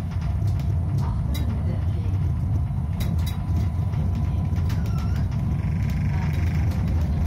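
Tram running along its rails, heard from the cab: a steady low rumble of wheels and running gear, with a faint steady hum and a few light clicks.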